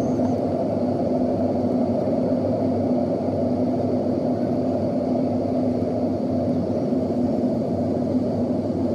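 Steady cabin noise inside a Southwest Airlines Boeing 737 descending on approach: an even rush from the jet engines and the air over the fuselage, with a steady hum beneath it.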